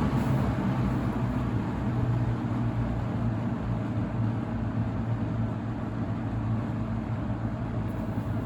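A 1979 second-generation Lakewood K-223 box fan with a McMillan motor running on its low speed setting: a steady rush of air over a low motor hum, easing slightly as the blade settles to the lower speed.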